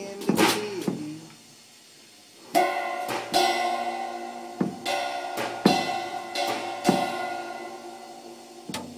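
Music with drums, cymbals and guitar comes in about two and a half seconds in, sustained chords under regularly recurring sharp drum and cymbal hits. A couple of short knocks come just before it, near the start.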